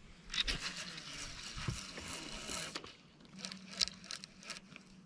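Baitcasting reel and line handling: a rushing whir for about two and a half seconds, then light scattered clicks as the reel is worked, over a faint steady hum.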